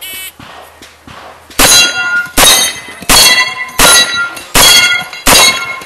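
Shot-timer start beep, then six shots from a 4-inch Smith & Wesson Model 625 revolver, about three-quarters of a second apart, each followed by a metallic ring as steel targets are hit.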